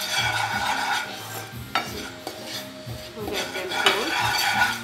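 Spatula scraping and stirring dry spice powder roasting in a nonstick frying pan, in two spells: one over about the first second and one from about three seconds in, with a sharp knock in between.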